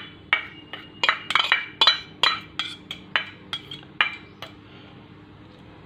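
Steel spoon and small steel bowl clinking as peanuts and seeds are tapped out into a steel mixer jar. A run of sharp ringing clinks, two or three a second, stops about four and a half seconds in.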